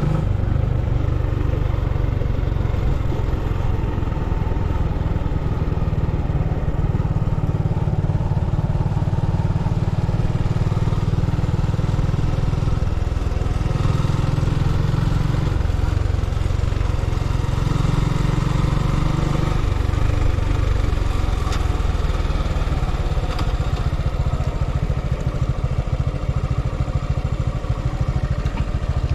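A vehicle on the move: a steady deep engine and road rumble, with the engine note drifting up and down a little partway through.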